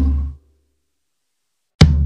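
Background music with drums fades out about half a second in and is followed by dead silence. A new, drum-heavy music track starts with sharp beats just before the end.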